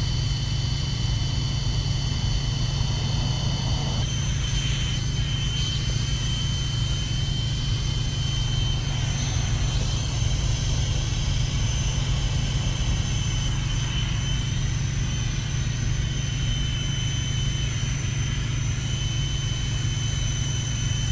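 Engine running steadily at idle: a constant low hum with a thin, steady high whine over it.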